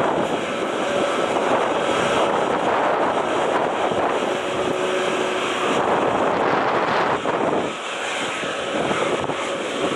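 Airbus A321neo airliner's jet engines running, with strong wind buffeting the microphone. The engine sound dips briefly near the end.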